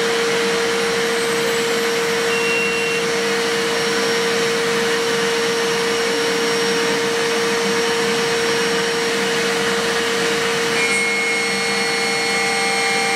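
Spindle of a DIY CNC milling machine running at a steady 12,000 rpm with a Holex 6 mm four-flute solid-carbide end mill: a constant hum with a strong single tone over a hiss. About eleven seconds in, the cutter enters the C45 steel and a cluster of higher steady tones joins as the cut begins.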